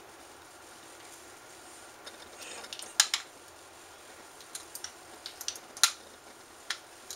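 Scattered sharp clicks and light scrapes of a small screwdriver working against the plastic casing of an Xbox 360 wireless controller, with the two loudest clicks about three seconds in and just before six seconds in.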